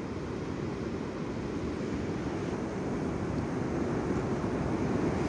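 Steady rushing noise of ocean surf and wind on a beach, growing slowly a little louder.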